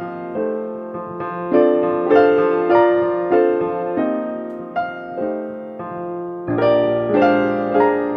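Background music: a gentle solo piano melody, notes struck about twice a second and fading after each, with a low bass line joining about six and a half seconds in.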